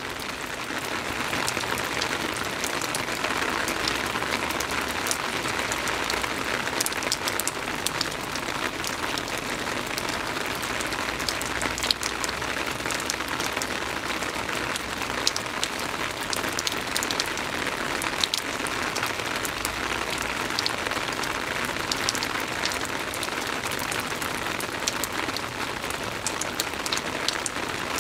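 Soft rain falling steadily: an even hiss with many separate drops ticking sharply through it.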